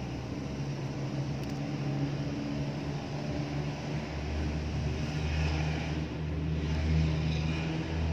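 A motor engine running steadily with a low hum that grows louder about halfway through.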